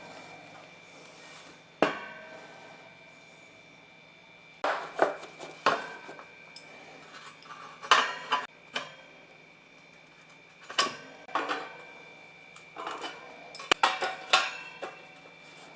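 Irregular clinks and clatters of small metal parts being handled. They come in short clusters a few seconds apart, with quieter gaps between.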